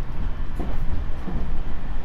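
JR Central 373 series electric train (car KuMoHa 373-8) running along the line: a steady low rumble of wheels on track, with a few irregular knocks.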